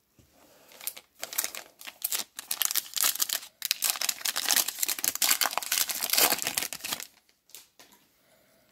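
A Topps Stadium Club Chrome foil card pack crinkling as it is handled and torn open. The crackling starts about a second in and stops around seven seconds.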